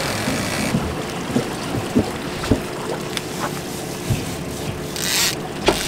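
Boat under way offshore: twin Suzuki 250 outboards running and water rushing past the hull, with wind on the microphone. A few short knocks are scattered through it, and a brief rush of noise comes near the end.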